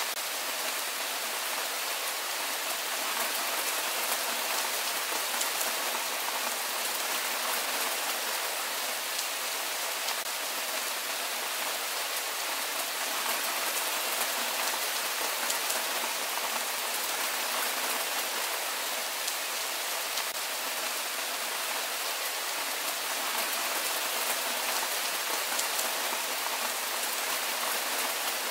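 Steady rain falling: an even hiss of many drops with no change in strength.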